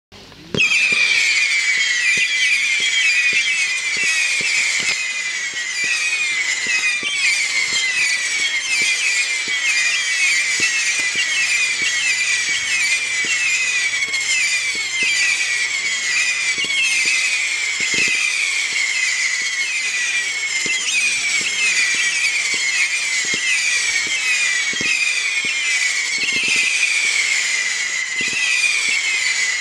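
P7071 'Fire Storm' 300-shot, 0.6-inch firework cake firing in rapid succession, each shot a whistle that falls in pitch, many overlapping, with scattered dull thumps of the shots launching. It starts suddenly about half a second in and keeps going without a break.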